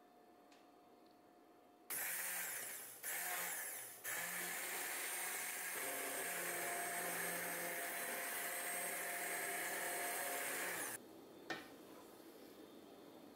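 Immersion stick blender puréeing lentil soup in a steel pot: it starts about two seconds in with two short bursts, then runs steadily for about seven seconds and stops. A single knock follows shortly after.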